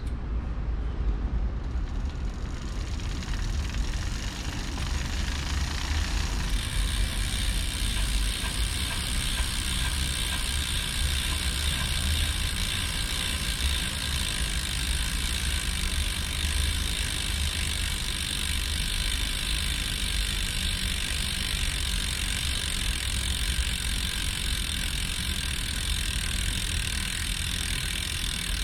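Campagnolo Shamal Mille bicycle wheel running steadily with an abnormal noise from around the freehub, the sign of a freehub bearing with play. A low rumble runs throughout, and a higher hiss joins about six and a half seconds in and holds.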